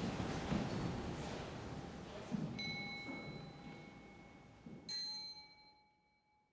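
A bell or similar metal percussion struck twice, each strike leaving a steady high ringing tone, over a low rumble that is fading away. The sound cuts off abruptly about three-quarters of the way through.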